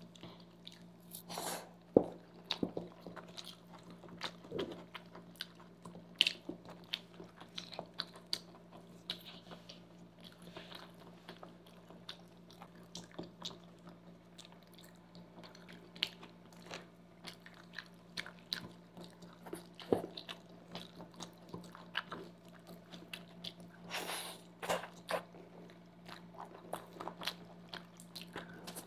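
Close-miked chewing and mouth sounds of people eating pasta and noodles, with many short sharp clicks of forks against a foil-lined tray over a faint steady hum.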